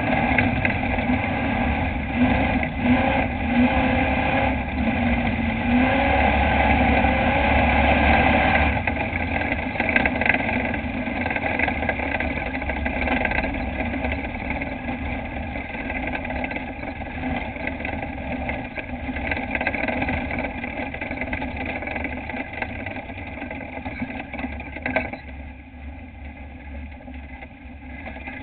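Dirt-track racing truck's engine heard from inside the cab, running loud for the first several seconds, then easing off and growing steadily quieter toward a low, idle-like run near the end. A single sharp click comes a few seconds before the end.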